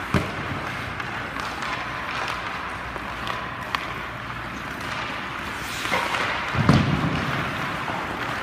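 Ice hockey shot: a sharp crack of the stick striking the puck just after the start, over steady rink background noise. A few light knocks follow, and about two-thirds through comes a heavy, dull thud, the loudest sound.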